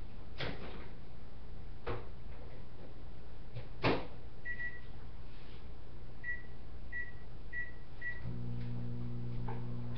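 Microwave oven being set and started to heat a lump of homemade clay dough for a few seconds: clicks and a louder knock of the door, then five short keypad beeps, and about eight seconds in the steady low hum of the microwave running starts.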